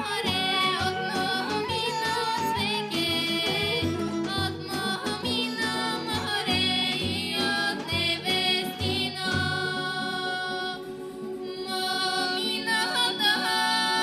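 Two women singing a Bulgarian folk song together over instrumental accompaniment with a steady beat. The beat drops out about two-thirds of the way through, leaving held notes.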